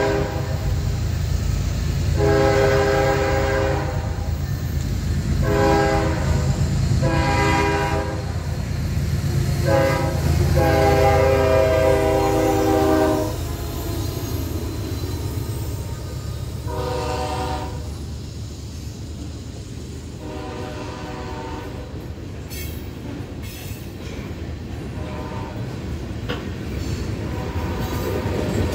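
Locomotive air horn, a Nathan K5HL five-chime, blowing a series of blasts for the grade crossing: a long one, two shorter ones, then a long one ending about 13 seconds in. Fainter blasts follow as the train moves off. Under the horn runs the steady low rumble of the diesel locomotives and the passing train.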